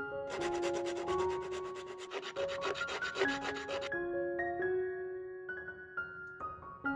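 Fast, even rubbing strokes, about eight a second, over soft piano music. The rubbing lasts about three and a half seconds and cuts off abruptly; the piano carries on alone.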